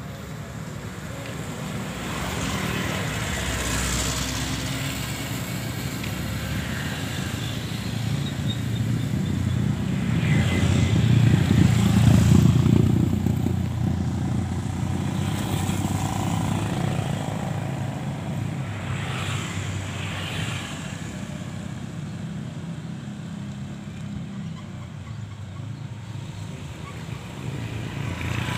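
Street traffic, mostly motorcycles and scooters riding past. A steady engine rumble swells as one passes close about halfway through, with other bikes going by before and after.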